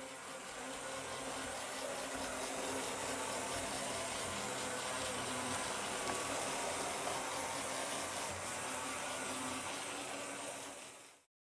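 Faller toy train locomotive running steadily around its track pulling four wagons, its small electric motor and wheels making a continuous whirring noise. The sound swells over the first two seconds and fades out near the end.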